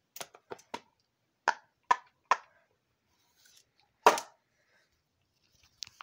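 Short sharp pops and knocks from a rainbow silicone pop-it fidget toy being handled: a few soft ones at first, three louder ones in quick succession about two seconds in, and the loudest near the four-second mark.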